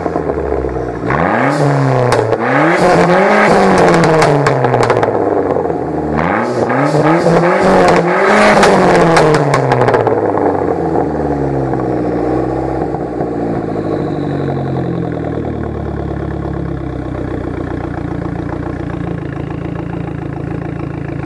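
Dodge Neon SRT-4's turbocharged 2.4-litre four-cylinder, breathing through a full 3-inch custom exhaust with a Magnaflow cat, revved up and let back down several times in the first ten seconds, then settling back to a steady idle. The engine is warm.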